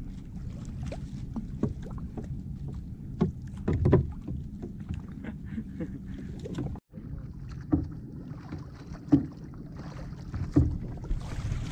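Small wooden outrigger paddle boat rocking on the sea, with a steady low rumble of water and wind and about half a dozen scattered knocks against the hull.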